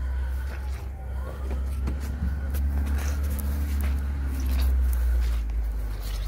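Steady low rumble with scattered light clicks and knocks as a handheld camera is carried across a lawn: wind and handling noise on the microphone.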